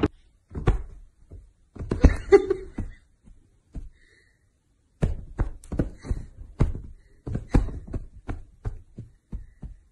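Soft thumps and taps on a blanket-covered bed where a kitten is playing: a couple of thumps early on, then a quick string of taps, about two a second, from about five seconds in.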